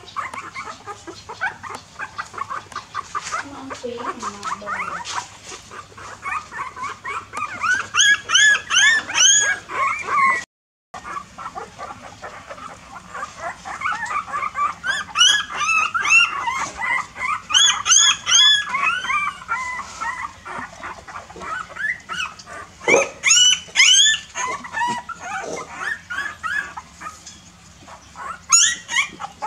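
Newborn puppies whimpering and squealing in rapid, high-pitched cries that come in several loud bursts, with a brief cut-out partway through. They are hungry puppies crying to nurse.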